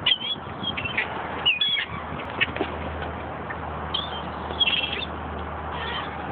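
A flock of gulls calling in short, high cries at irregular intervals while they flap down. A low steady hum comes in about two and a half seconds in.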